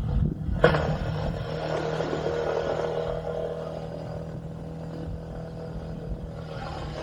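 A motor vehicle's engine running steadily with a constant hum, starting suddenly about half a second in.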